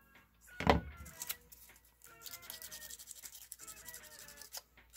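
A single thunk under a second in as a tool is set down on the cutting mat, then from about two seconds rapid scraping strokes as a hobby knife shaves the plastic of a Lego antenna piece. Soft background music runs underneath.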